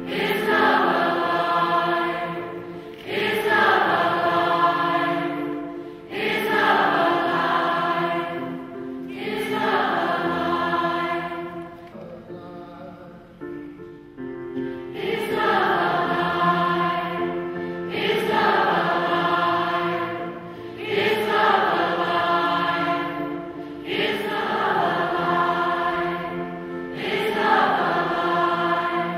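A group of amateur voices singing together as a choir, in phrases about three seconds long, with a pause of a couple of seconds about twelve seconds in.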